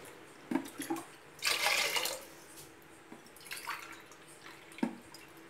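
Water poured into an open aluminium pressure cooker pot in a few short splashing pours, with a light knock near the end.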